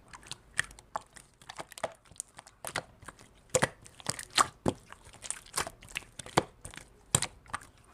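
Slime being squished and poked by hand, making irregular sharp crackles and pops.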